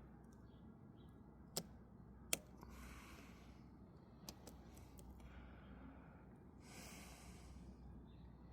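Two sharp clicks about three-quarters of a second apart and a fainter one a couple of seconds later, from a flat screwdriver working a snap ring onto its groove, over quiet room tone with soft breathing.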